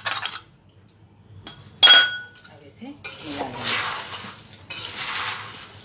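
A metal spoon knocks sharply against a metal pot with a short ringing tone. Then dry, crispy namkeen mix (sev, boondi, peanuts, fried dal) rustles and rattles as it is mixed in the pot.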